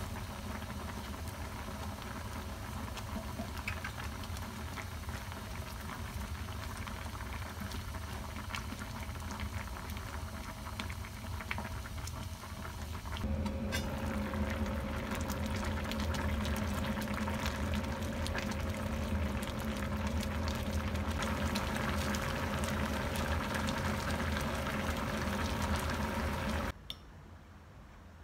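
Spicy Korean braised chicken stew boiling hard in a stainless steel pan, a dense bubbling and popping. About 13 seconds in the bubbling of the thickened stew gets louder, over a steady low hum, and it cuts off shortly before the end.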